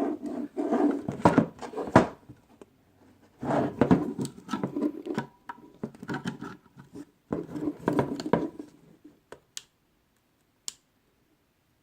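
Small plastic connector housing and metal terminal pin being handled: irregular scraping, rustling and clicking, then a few short sharp clicks near the end as the pin is pushed into the 3D-printed housing and seats.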